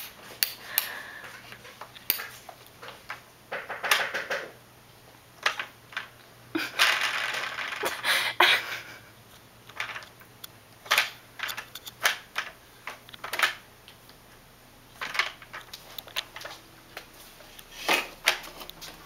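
Hard plastic ride-on toy car clattering and rolling on a wooden floor as a toddler scoots it with her feet: scattered clicks and knocks, with a longer rattling stretch about seven seconds in.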